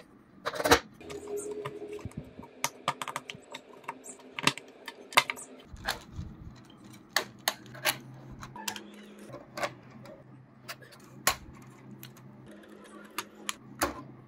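Irregular sharp clicks and taps of hard plastic and small steel ball bearings handled and pressed into the hubs of 3D-printed plastic wheels, with the wheels being fitted onto plastic suspension arms.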